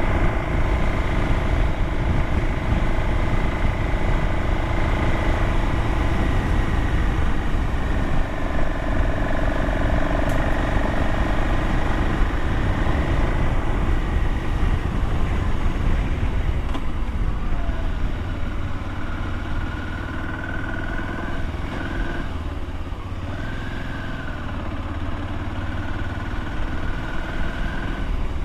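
Motorcycle engine pulling up a steep switchback climb, with a heavy low wind rumble on the helmet camera's microphone. The engine note eases and gets a little quieter about two-thirds of the way through.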